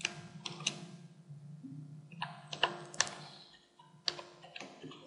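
Computer keyboard being typed on: scattered, irregular key clicks over a faint low hum.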